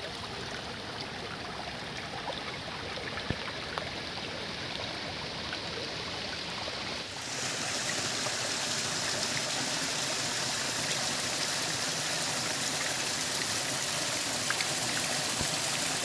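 Water running and trickling over rocks in a shallow hillside stream, with raindrops landing on the water. About seven seconds in it turns abruptly louder and brighter, a steady rush of small falls splashing.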